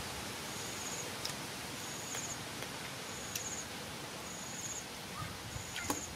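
Outdoor forest ambience: an insect repeats short, high, buzzy chirps about once a second over a steady background hiss, with a few faint clicks.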